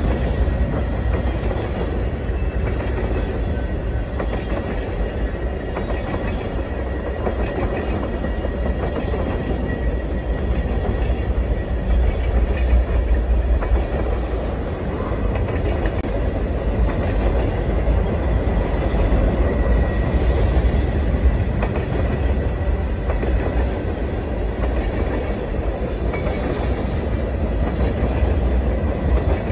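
Freight train of tank cars rolling past: a steady low rumble of wheels on rail with clickety-clack over the joints, and a faint steady high squeal.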